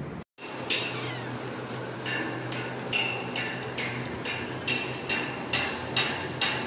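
A small hand bell, a puja ghanti, being rung in steady strokes, about two rings a second, each with a short bright metallic ring that dies away.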